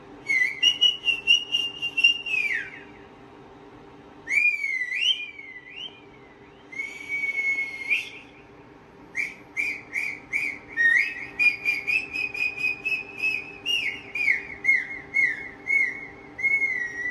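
Runs of short, high-pitched whistly squeaks played through a TV's speaker. Some notes glide down, and a few sweep up and down, in bursts separated by short pauses.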